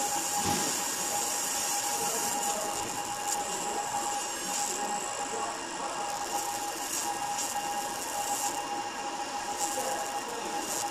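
Fiber laser marking machine running while its laser engraves a glass mirror's coating: a steady hiss with a steady mid-pitched hum, and short bursts of higher hiss now and then.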